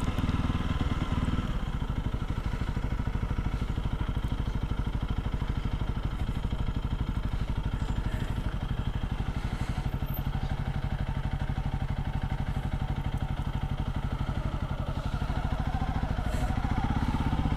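Honda CRF300L's single-cylinder four-stroke engine running at a steady riding speed, its firing pulses even. The engine pulls a little harder near the end.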